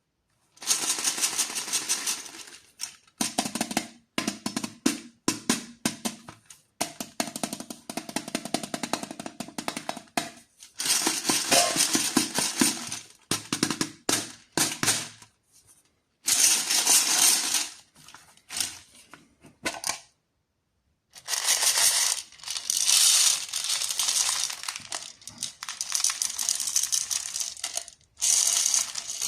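Plastic and foil candy wrappers crinkling and crackling as candies are unwrapped by hand, in bursts of a few seconds separated by short pauses, with about a second of silence roughly two-thirds of the way through.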